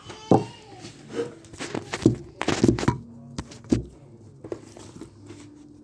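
Handling noise: a run of knocks, taps and rustles, bunched in the first few seconds.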